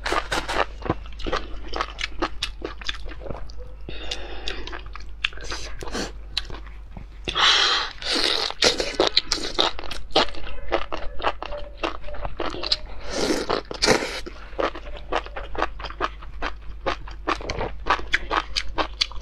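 Close-miked eating of spicy enoki mushrooms: many quick wet chewing clicks and crunches, with a few longer slurps about 4, 8 and 13 seconds in. A steady low hum sits underneath.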